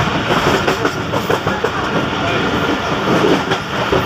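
Passenger train running at speed, its wheels clattering over the rail joints in an uneven stream of clicks over a steady rumble, heard from the last coach.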